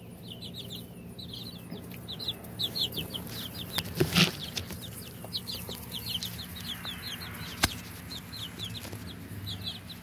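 Young chickens peeping: runs of short, high chirps repeated one after another. A short rustling burst comes about four seconds in, and a single sharp click near eight seconds.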